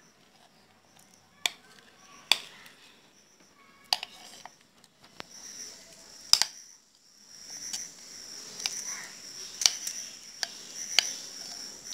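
Metal spoon scraping cake batter out of a bowl into a non-stick pan, with several sharp clinks of spoon on bowl and a softer steady scraping in the second half.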